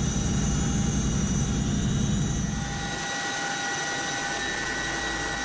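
CH-47 Chinook tandem-rotor helicopter running: heavy rotor rumble under a steady turbine whine. About three seconds in the low rumble drops away, leaving the whine over a steady rushing noise.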